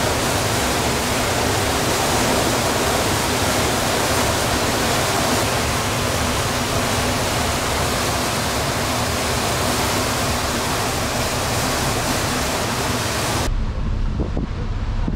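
Steady rushing noise on the deck of a moving river cruise ship. About thirteen seconds in it cuts abruptly to a duller, rumbling buffeting of wind on the microphone.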